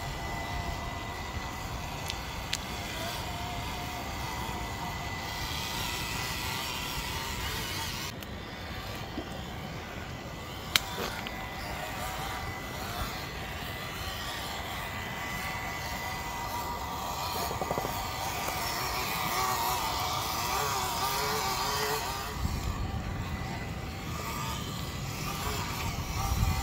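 Traxxas TRX4M mini RC crawler driving through water and mud: the whine of its small electric motor and gearbox wavers up and down with the throttle over a low wet churning of tyres in muck, with one sharp click partway through.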